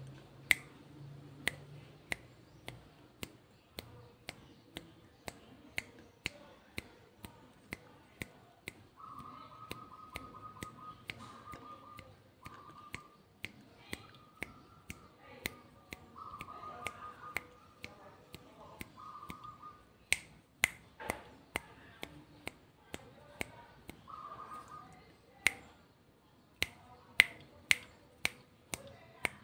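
Sharp dry clicks, roughly two a second and uneven in strength, with a faint high steady tone sounding in short stretches from about nine seconds in.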